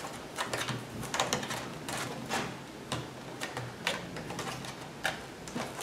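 Light scattered clicks and rustling of hands handling and nudging a Depron foam pedestal taped onto a model plane's wing.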